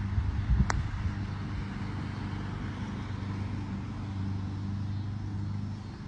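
One sharp click about a second in: a putter striking a golf ball. It plays over a steady low hum.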